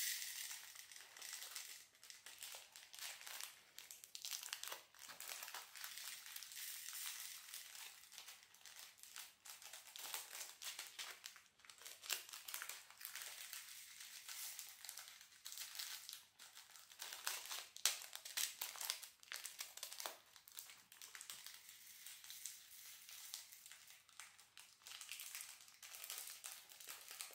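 Faint, irregular crinkling and rustling of small plastic bags of diamond-painting drills as they are handled and cut open with scissors, with small clicks and snips.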